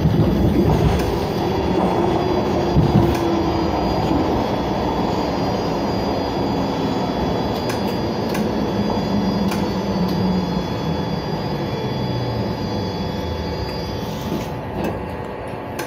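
Baltimore Metro SubwayLink train heard from inside the car as it slows into a station: rumbling wheel and rail noise with a whine that falls in pitch as the train brakes, and a few sharp clicks over track joints.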